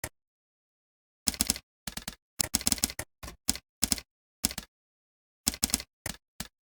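Typing on a computer keyboard: quick runs of key clicks broken by short pauses, the busiest run about a second in.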